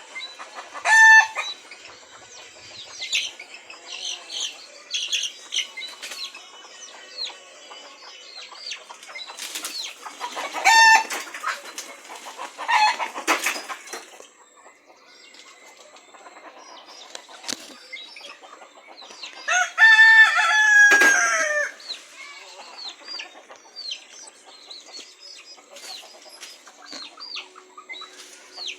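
Domestic chickens settling onto their roost branches: wings flapping, short clucks and chirps, and a rooster crowing several times, the longest crow about twenty seconds in.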